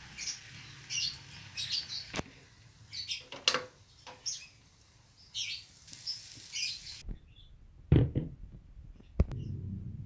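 Small bird chirping in short, repeated high calls, mixed with a few sharp knocks and clatters; the loudest knock comes about eight seconds in.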